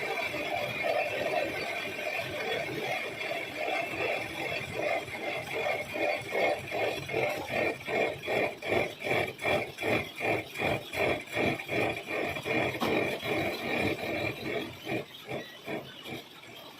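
Lathe cutting a thread in a cast iron nut: a cutting noise with a steady pitch that pulses evenly about two to three times a second, strongest in the middle and fading toward the end.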